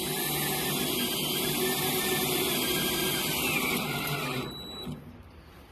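Power drill driving a self-tapping screw into the canoe's aluminum hull. The motor whirs steadily for about four and a half seconds, its whine dropping slightly in pitch just before it stops.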